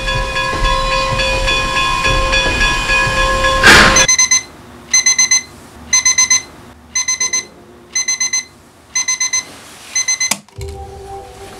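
A train horn holds one steady note over a rumble, ending in a loud crash about four seconds in that cuts off sharply. Then an alarm clock beeps in quick groups of four or five, about one group a second, until it is switched off mid-group near the end.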